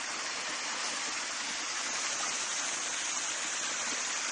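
Acid being dumped in bulk: a steady rushing hiss of pouring liquid, unchanging throughout.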